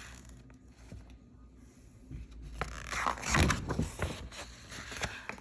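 Rustling and scraping handling noises with scattered clicks, loudest from about two and a half to five seconds in.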